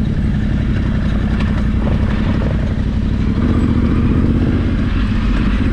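Yamaha Ténéré 700's parallel-twin motorcycle engine running steadily, with rough noise over it.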